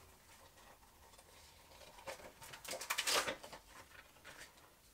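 Pages of a spiral-bound paper desk calendar being turned by hand: a rustle and flap of stiff paper, loudest about three seconds in, with light handling clicks around it.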